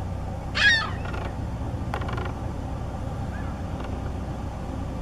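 A bird gives one short, loud call about half a second in, followed by a few faint chirps, over a steady low rumble.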